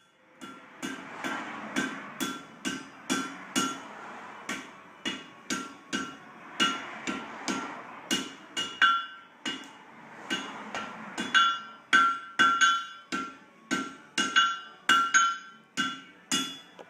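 Blacksmith's hammer striking metal on an anvil, a steady run of blows about two to three a second, each with a short metallic ring; the blows get louder about two-thirds of the way through.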